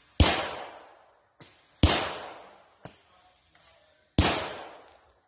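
Aerial fireworks bursting: three loud bangs about two seconds apart, each echoing away over about a second. Fainter single pops come between them.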